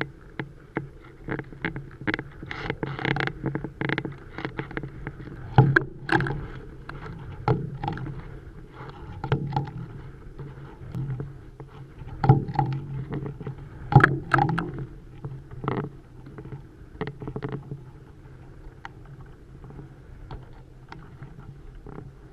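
Irregular knocks and clicks from a camera rig swinging beneath a high-altitude balloon, over a steady low hum. The knocks come thick and loud at first and thin out over the last several seconds.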